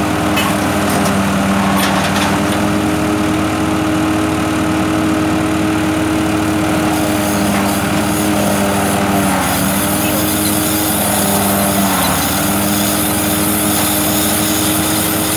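Tractor-powered fodder baling machine running: a steady engine note with the machine's mechanism turning. The engine note sags briefly a couple of times.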